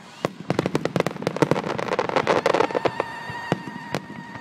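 Fireworks finale: a rapid barrage of aerial shell bursts, the bangs coming thick and fast for the first couple of seconds, then thinning to scattered reports. A steady high tone enters about two-thirds of the way through.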